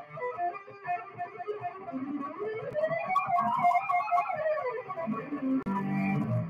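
Electric guitar played alone, picking single notes; in the middle a note glides up, holds, then glides back down.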